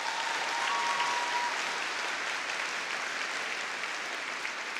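Audience applauding, swelling early and then slowly tapering off.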